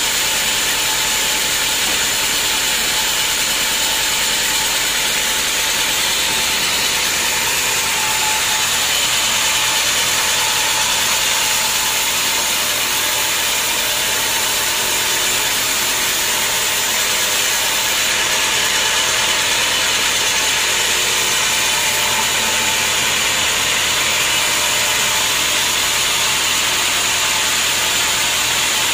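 Vertical band sawmill running steadily as its blade rips lengthwise through a teak log: a loud, even, high-pitched whir of the blade and motor.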